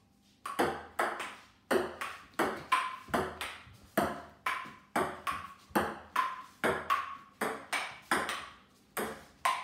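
A table tennis rally on a wooden dining table: the ball clicks back and forth off the tabletop and the paddles, about two to three hits a second. It starts about half a second in, and some hits carry a short ringing ping.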